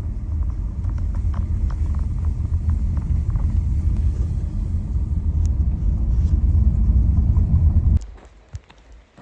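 Car driving: a steady low rumble of road and tyre noise with scattered small ticks, cutting off suddenly near the end.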